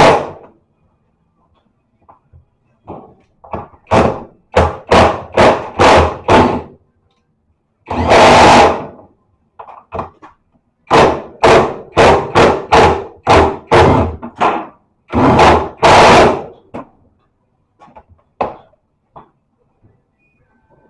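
Repeated loud knocks and thuds from work on a washing machine while its rewound motor is being fitted, coming in runs of about two a second with a few longer, rougher bursts between.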